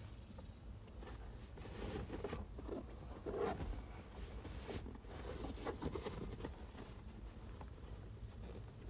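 Faint, irregular scraping and light clicking of hand tools and metal parts being handled, with a few slightly louder scrapes about two and a half, three and a half and six seconds in.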